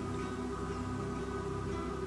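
Steady ambient background music with sustained tones.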